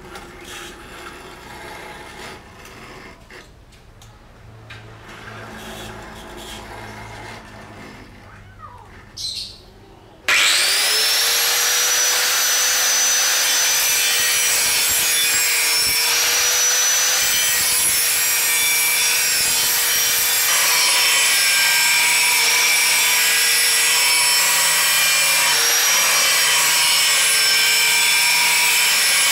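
Faint handling sounds for about ten seconds, then an angle grinder switches on, its whine rising quickly to speed, and runs steadily as its thin disc grinds along the outline of a steel knife blank.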